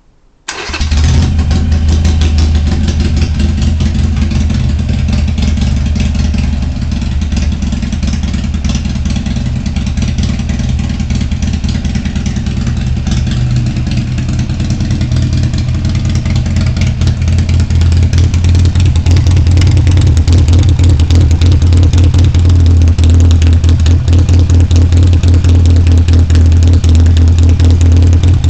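Harley-Davidson Iron 883 Sportster's 883 cc air-cooled V-twin, breathing through a Vance & Hines Competition Series 2-into-1 exhaust, starting up about half a second in and then idling loudly and steadily. It grows a little louder from about two-thirds of the way through.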